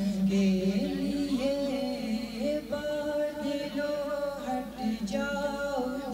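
A man's voice singing an Urdu poem unaccompanied, holding long notes that waver and glide from one pitch to the next.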